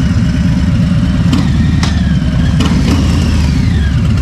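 Harley-Davidson V-twin motorcycle engine idling with a steady, pulsing low beat, with a few sharp clicks between about one and a half and two and a half seconds in.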